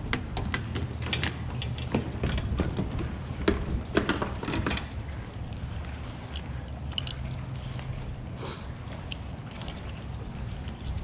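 A run of sharp clicks and knocks, thick for the first five seconds and scattered after, over a steady low rumble like wind on the microphone.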